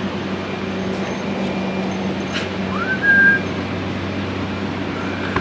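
Steady low mechanical hum in a shop, with a brief whistle about three seconds in that glides up and then holds on one note.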